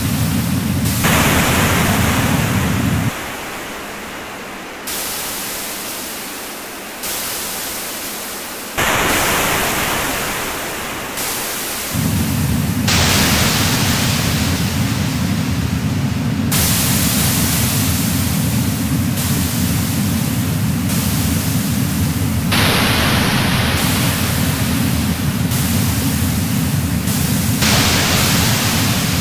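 Electronic noise music: dense hiss and rumble built from bands of filtered noise that switch abruptly every second or two. The low rumble drops out about three seconds in and returns near the twelve-second mark, leaving thinner, fading hiss in between.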